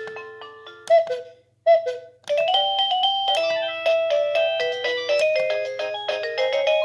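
Plug-in wireless doorbell receiver playing its electronic chime tunes. One melody fades out, two short single notes sound about a second in, and a new, quicker melody starts after about two seconds.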